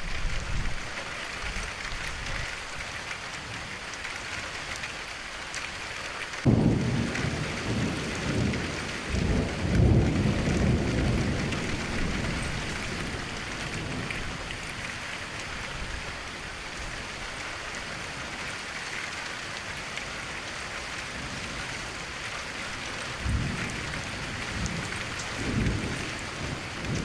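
Steady rain with rolling thunder. A thunderclap breaks in suddenly about six seconds in and rumbles on for several seconds, and more thunder rumbles build again near the end.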